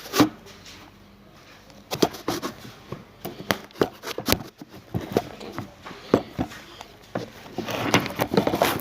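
Irregular clicks and knocks of a stirring utensil against the container as glue is mixed for slime.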